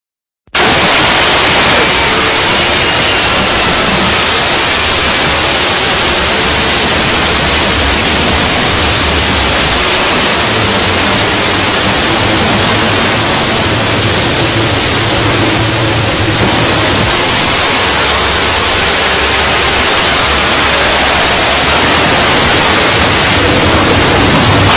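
Loud, harsh static hiss from a scary sound effect. It cuts in abruptly out of silence about half a second in and holds steady, with faint tones and a low hum buried in the noise.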